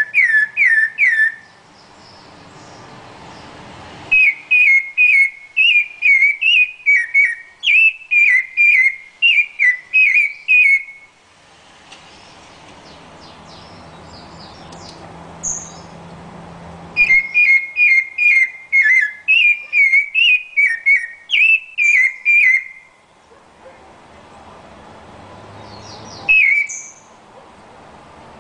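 Rufous-bellied thrush singing: long runs of clear whistled notes, about two a second, each run lasting several seconds, with pauses of a few seconds between runs.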